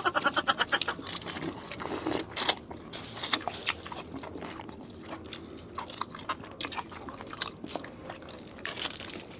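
People eating with their hands: chewing and mouth smacking, with scattered small clicks and taps.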